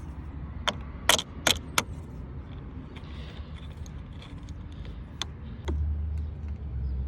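Metal clinks and taps of a wrench and the negative cable clamp being refitted to the car battery's terminal: a quick run of sharp clicks in the first two seconds, then two more a little after five seconds. About five and a half seconds in, a low steady rumble starts suddenly and keeps going.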